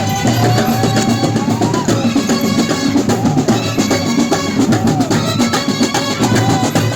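Music with fast, dense drumming and a wavering melody line above it.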